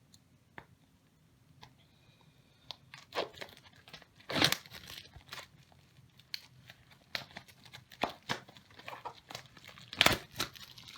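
Wrapping being torn open and crinkled off a manual, in irregular rustling, tearing crackles, loudest about four and a half seconds in and again near the end.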